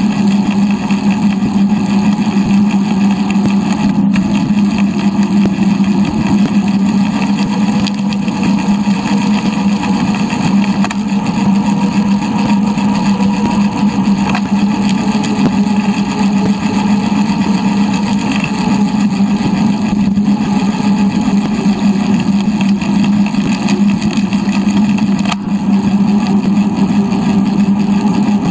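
Wind and road noise from a moving bicycle, recorded by a GoPro in its housing and sped up threefold, heard as a loud, steady drone with a rushing hiss.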